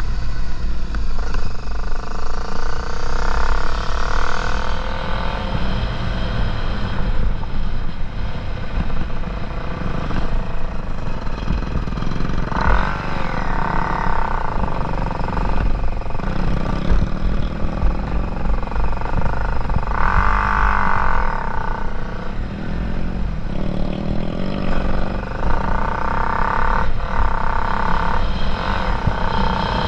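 Dirt bike engine running while riding, its note rising and falling several times as the throttle opens and closes, over a steady low wind rumble on the microphone.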